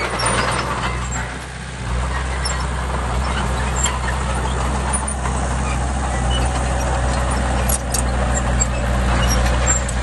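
Heavy diesel engine of an earthmoving machine running steadily, easing off briefly about a second in and picking back up just before the two-second mark, with a few faint knocks.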